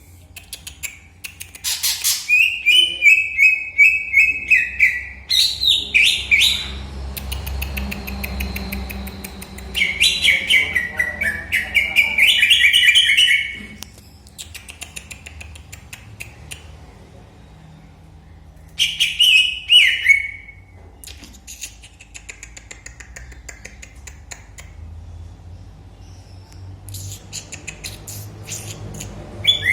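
Pet birds chirping and warbling in fast phrases, in three bursts with quieter gaps between them.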